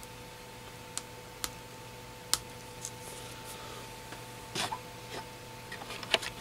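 Scattered small clicks and taps as the parts of a disassembled iPhone 6 screen assembly are handled while its home button is being removed, the sharpest about two seconds in and a quick cluster near the end. A faint steady hum with a thin high whine runs underneath.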